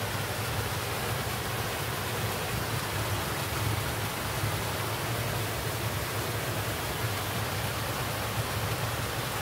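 Small creek running high with muddy floodwater after heavy overnight rain, a steady rush of flowing water.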